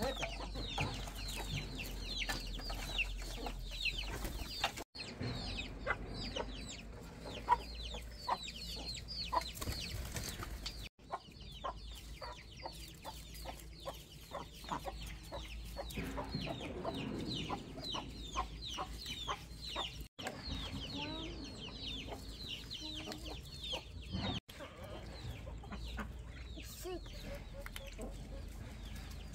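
Chickens clucking and peeping, a steady stream of short, high, falling calls, with the sound cutting out briefly four times.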